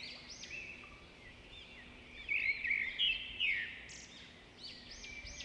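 Recorded birdsong: several small birds chirping in quick, overlapping arched notes, louder for a second or so in the middle.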